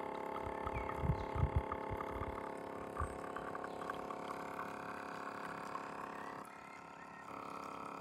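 CONQUECO 12 V battery portable espresso machine pumping water through the coffee, a steady hum with a few low gurgling thumps about a second in. The hum drops off briefly near the end, then resumes.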